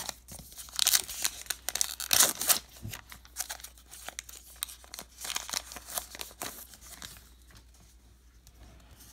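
Wrapper of a 2019 Topps Gypsy Queen baseball card pack being torn open and crinkled by hand, in several short rustling bursts, quieter near the end as the cards slide out.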